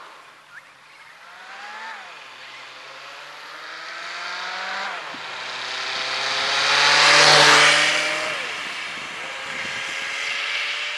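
A vehicle's engine accelerating up through the gears, its pitch climbing and dropping back at each shift. Tyre and road noise swells as the vehicle passes close, loudest about seven seconds in.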